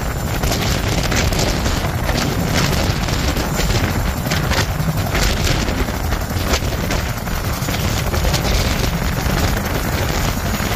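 CH-47 Chinook tandem-rotor helicopter running on the ground, its twin turbines and two rotors turning, heard as a loud, dense rumble. Rotor downwash buffets the microphone with gusty wind noise.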